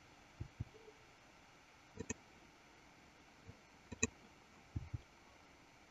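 Faint computer mouse and keyboard clicks, mostly in quick pairs, four times in a few seconds, over a low steady room hiss.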